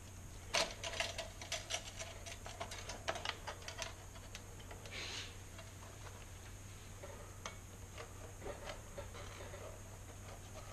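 Light metallic clicks and taps of hands working a steel bar and locking-plier clamps in a band saw's cutting jig, busiest in the first few seconds and sparser later. A faint steady low hum sits underneath.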